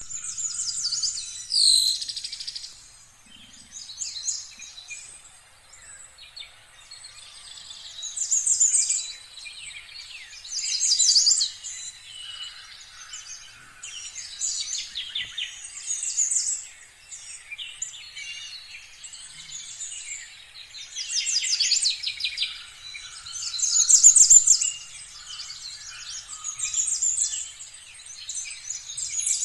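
Birds singing and chirping: quick high trills and repeated chirps in short phrases every second or two, with several voices overlapping.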